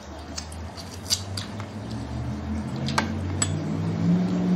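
Chopsticks and a spoon clicking against ceramic bowls and a plate during a meal, a few separate taps. A low steady hum underneath grows louder toward the end.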